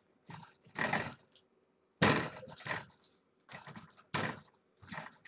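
Kittens scampering, pouncing and climbing on a carpeted sisal cat tree: a run of scuffles and thumps, the sharpest about two seconds in and again about four seconds in.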